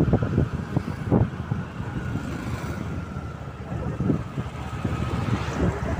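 Road noise and wind buffeting the microphone from a moving vehicle travelling at speed, with the rumble and wind gusts rising and falling unevenly.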